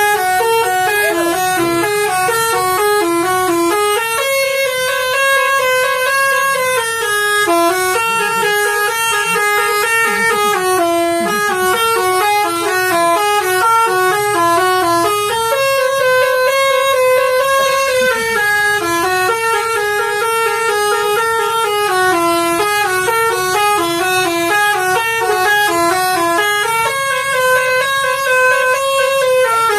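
Telolet horn on a bus, a multi-tone musical horn, playing a quick tune of stepping notes without a break. The tune comes round about every eleven seconds, each time with a few longer held notes.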